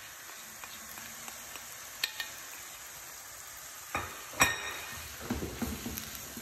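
Shredded green papaya sizzling steadily in oil in a nonstick wok, with a few light clicks. About four seconds in, a wooden spatula starts stirring and scraping it round the pan, with one sharp knock just after.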